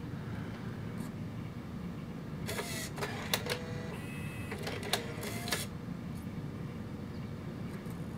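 CD changer in a Bose Lifestyle 20 music center switching to another disc: several short whirring and clicking bursts from the changer mechanism, between about two and a half and five and a half seconds in.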